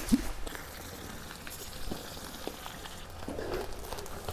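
Soft rustling and scattered light clicks of a fabric-topped plastic mesh mat and a metal rule being handled on the floor, with a brief knock right at the start.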